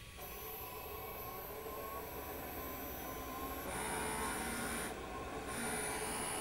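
Dual-head DTF printer's cleaning mechanism running during a head-cleaning cycle: a steady motor sound with a thin high tone starts just after the beginning, and two louder noisy spells of about a second each come in the second half.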